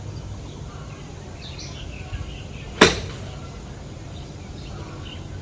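A single sharp crack of a golf club striking the ball, about three seconds in, over steady outdoor background noise.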